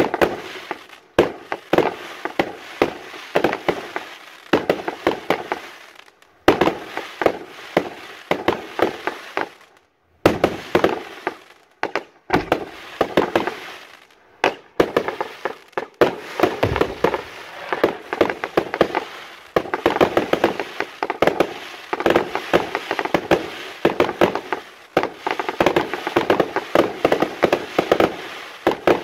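Aerial fireworks firing and bursting in rapid succession, sharp bangs overlapping with crackling stars. There are a few short lulls in the first half, and the bursts are densest near the end.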